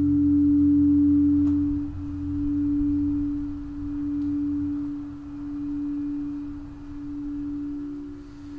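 Singing bowl ringing with one steady low tone that swells and ebbs in slow waves and gradually fades, with a second, slightly higher tone joining near the end.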